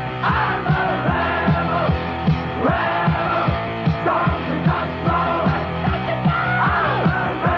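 Rock song with singing over a steady drum beat, played by a sonido sound system and heard on a lo-fi recording with the top end cut off.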